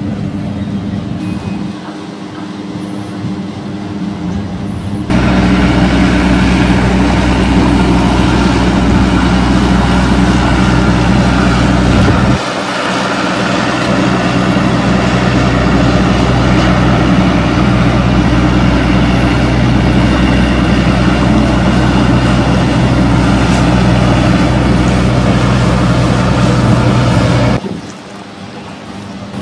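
A boat engine running steadily on the river, quieter for the first few seconds, then loud and close before cutting off suddenly near the end.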